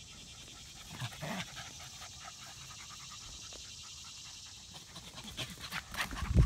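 Rat terriers panting hard during play, with two short sounds from them about a second in. Near the end comes a flurry of short noises as they wrestle, the loudest a low thump at the very end.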